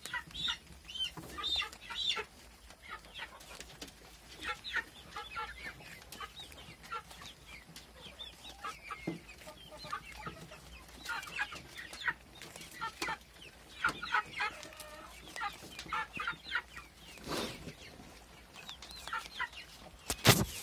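Nutrias gnawing and crunching apples, with scattered chewing clicks, under many short high calls that come in quick runs. A single sharp click near the end is the loudest sound.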